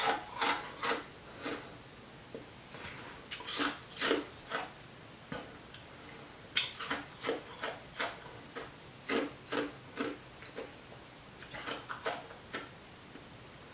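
Ice being crunched and chewed in the mouth: irregular runs of sharp, crackling crunches, broken by short pauses of about a second.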